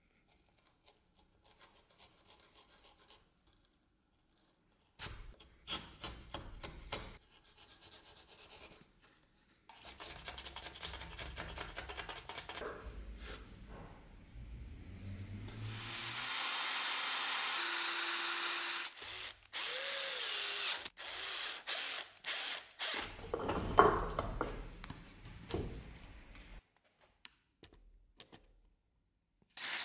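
An electric drill working wood in several separate runs, its motor speeding up in one of them, with a steady high whine during a longer, louder run about halfway through. Tools scrape and rub on the wood between runs, and sharp knocks come near the end.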